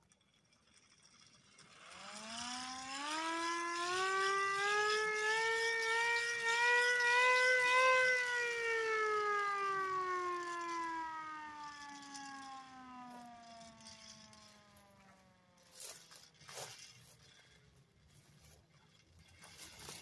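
Small hand-cranked mechanical siren winding up over about six seconds to a wail, its pitch wavering slightly with the cranking, then winding down slowly as it coasts. Two sharp knocks follow near the end.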